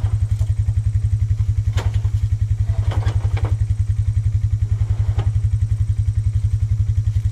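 A small engine idling steadily with a fast, even pulse. Over it come a few dull thuds as old tires are dropped into a cart.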